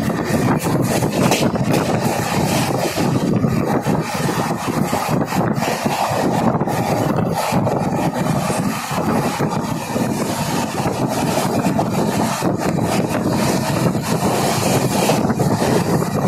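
Passenger express train running at speed, heard from on board: a loud, steady rush of wheels on rails and wind, with frequent clicks and rattles from the coach.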